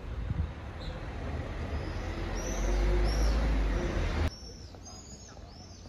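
Small birds chirping in short, repeated high calls over outdoor street ambience. A low rumble under the first four seconds cuts off abruptly, leaving quieter background with the chirps going on.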